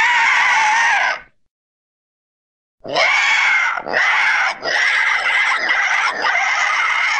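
Pterosaur creature sound effect: a harsh screech of about a second, falling in pitch, then after a gap of dead silence a run of four raspy, rasping screeches in close succession.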